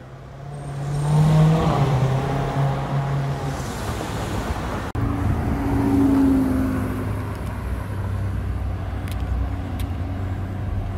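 Chevrolet Corvette V8 revving as it pulls away, its pitch rising then falling; then a Porsche 918 Spyder's engine swelling as it drives close past and away, fading into steady traffic noise.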